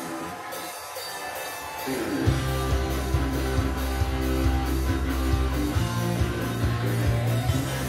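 A guitar-led song played from a Yamaha DVD-S1800 disc player through a Pioneer A-30 amplifier and two-way loudspeakers, heard in the room. It opens thin, and the full band with heavy bass comes in about two seconds in.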